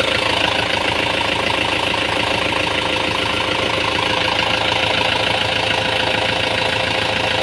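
Kubota M9540 tractor's four-cylinder diesel engine running steadily at idle after an overhaul with new piston rings.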